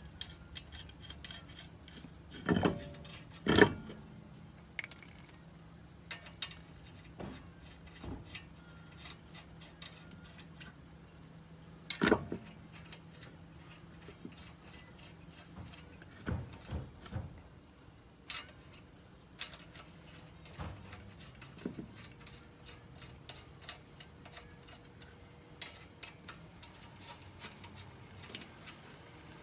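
Lug nuts being threaded onto a spare wheel's studs: a long string of small metallic clicks and ticks, with a few louder metal clanks, the loudest about three and a half seconds in and about twelve seconds in.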